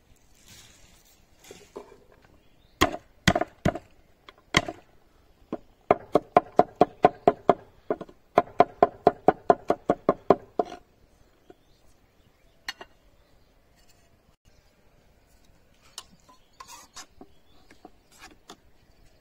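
Cleaver chopping garlic on a wooden cutting board: a few single strokes, then quick, even chopping at about four to five strokes a second for several seconds. Near the end, light clinks of a spoon in a metal bowl.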